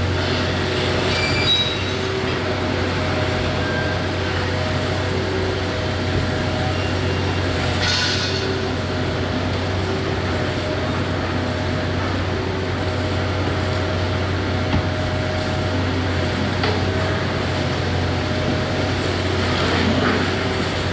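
Hitachi 670 LCH demolition excavator running steadily: a low diesel engine drone with a wavering hydraulic whine. Brief high metallic squeaks come near the start, and a short clatter about eight seconds in.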